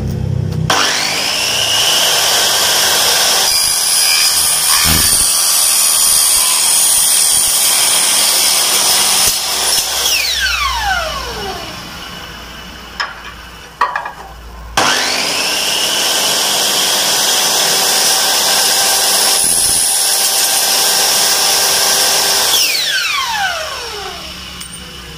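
Miter saw cutting aluminium window profile, twice. Each time the motor spins up with a rising whine, runs steady through the cut, and then winds down with a falling whine. A few light knocks come between the two cuts.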